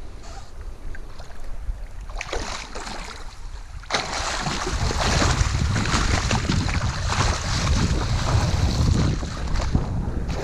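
Wind blowing across the microphone on open water, with a hiss of water around a kayak; it gets suddenly louder and fuller about four seconds in.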